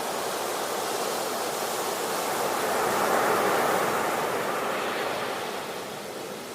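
A steady rushing noise that swells about three seconds in and then fades.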